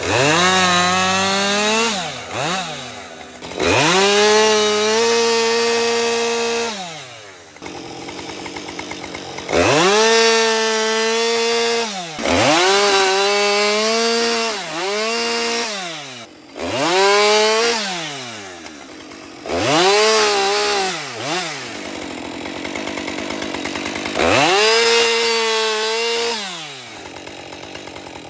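Husqvarna 550 XP two-stroke chainsaw throttled up to full revs about eight times, each burst held for one to three seconds before dropping back to idle, as it cuts through wood while bucking logs into firewood.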